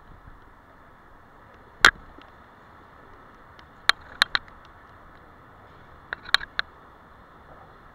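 Steady hiss of a bicycle riding over a wet street, broken by short sharp clicks: one about two seconds in, a quick run of three around four seconds, and three more a little past six seconds.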